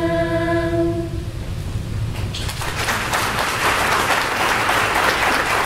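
A cappella choir holding the final chord of a national anthem, cutting off about a second in; an audience starts applauding about two seconds in.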